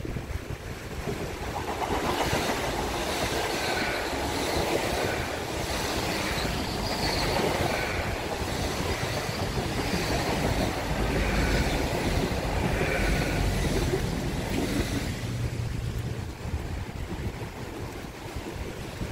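Great Western Railway Hitachi Intercity Express Train passing close by on the sea-wall line. The rumble and rail noise of its wheels swell about two seconds in, hold, and fade after about fifteen seconds.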